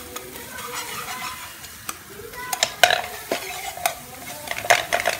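Wire whisk stirring and scraping scrambled eggs in a non-stick frying pan, with irregular sharp clicks as it knocks the pan, over a light sizzle of egg frying in oil.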